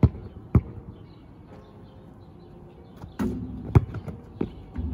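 A basketball bouncing on the court, about five separate thuds at uneven intervals. The loudest come right at the start, about half a second later, and near four seconds in.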